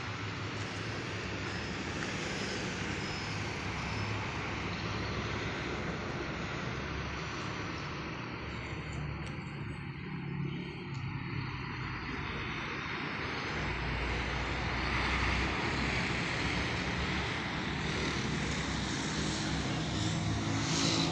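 A steady engine drone with a continuous rushing noise, holding at much the same level throughout and growing a little louder in the second half.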